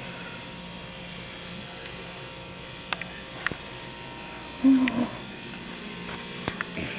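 Steady electrical hum or buzz, with a few small sharp clicks and a brief low vocal sound a little over halfway through.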